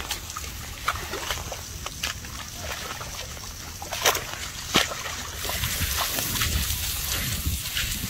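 Baby elephant rolling and wallowing in a mud puddle: wet sloshing and squelching with scattered splashes, two sharper slaps about four and five seconds in.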